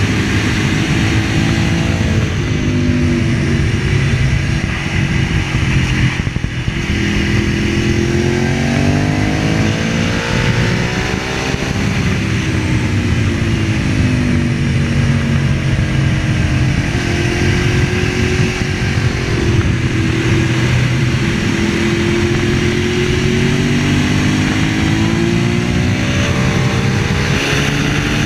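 Ducati 1098's 1099 cc L-twin engine at racing speed on track, its pitch climbing repeatedly as it pulls through the gears and falling back when the throttle closes for corners, with a dip about six seconds in. Steady wind rush runs under it.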